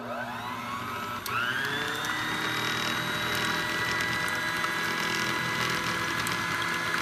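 Braun stand mixer's electric motor starting up and running, its wire beaters whisking whole eggs and yolks in a bowl. The whine rises as it starts and again about a second in, then holds steady.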